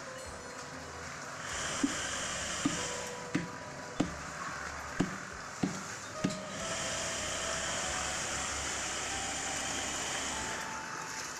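Drum concrete mixer running with a steady whirring hiss, and seven sharp knocks in its first half, about one every three-quarters of a second.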